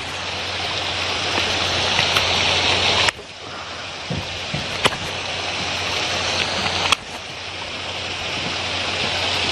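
Steady rush of running water. It cuts off abruptly twice and resumes, and a couple of faint clicks sit over it.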